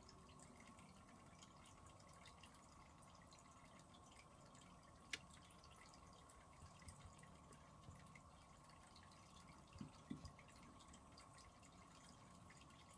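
Near silence: room tone with a faint steady hum, broken by a single sharp click about five seconds in and a few soft knocks around ten seconds.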